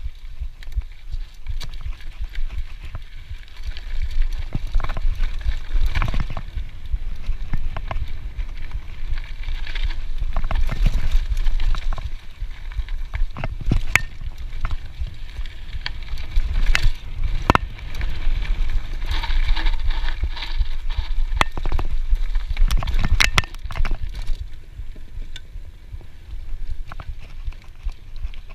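A Scott full-suspension mountain bike ridden fast over a dirt singletrack, heard from a handlebar-mounted GoPro. There is a constant low rumble of tyre and trail vibration and wind on the camera, with frequent sharp knocks and rattles from the bike's frame, chain and suspension as it hits roots and bumps.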